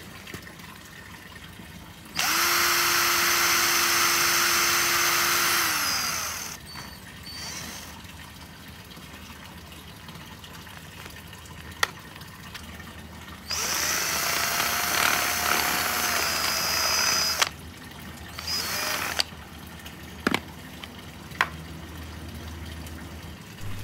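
DCK cordless drill boring a hole through the centre of a plastic scrub brush: two runs of about four seconds each, the first winding down in pitch as the trigger is released, then a short burst a little later and a few sharp clicks.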